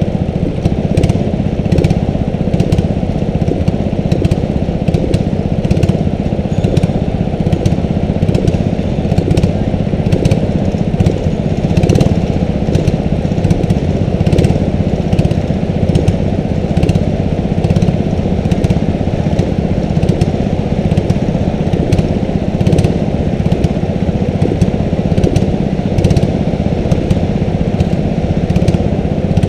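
Several small go-kart engines idling steadily together, with no revving, while the karts sit stationary waiting for the start.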